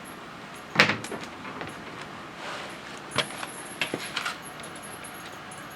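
Metal knocks and clinks from a heavy lathe apron casting being handled: one sharp knock about a second in, then a few lighter knocks and clinks a couple of seconds later, over a steady low hiss.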